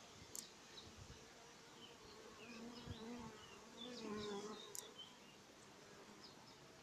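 Honeybees buzzing faintly around an opened hive as a bee-covered frame is lifted out, with a steady hum from a bee passing close about halfway through.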